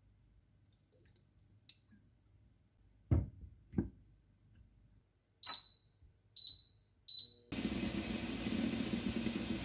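Glass lid set onto a saucepan with two knocks, then an induction cooktop's touch controls beep three times. From about three-quarters in, eggs boil hard in water under the glass lid, a steady bubbling.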